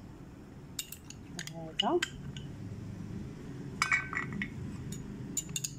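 A metal spoon clinking against a glass tumbler and a ceramic plate as water-soaked almonds are scooped out and tipped onto the plate: scattered clinks, with a cluster about four seconds in that rings briefly.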